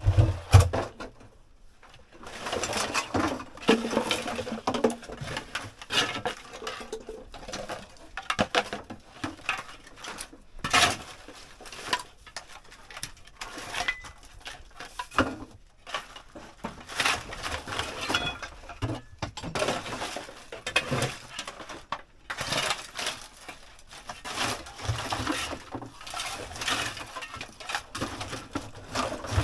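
Household junk being cleared: items clattering, clinking and knocking together as they are handled and thrown out, with rustling and scraping between the hits. A heavy low thud comes right at the start.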